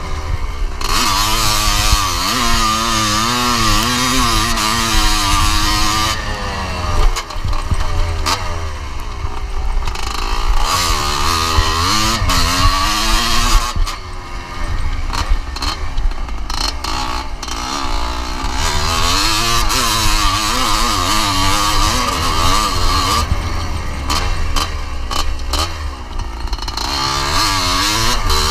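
1981 Yamaha YZ250's single-cylinder two-stroke engine revving hard under way, its pitch rising and falling with the gears and throttle, and easing off briefly a few times. A steady low wind rumble runs underneath.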